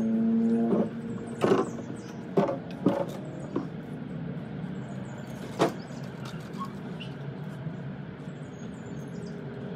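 Folded, hinged sleeping-platform boards knocking and bumping against an SUV's cargo area as they are loaded in through the rear hatch: five or so sharp knocks over the first six seconds. A humming tone sounds in the first second.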